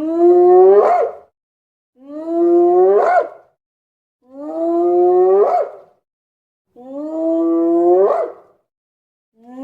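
Hyena whooping call played as a sound effect, the same call repeated four times about two seconds apart and a fifth beginning near the end: each a held, howl-like note that sweeps upward at its close.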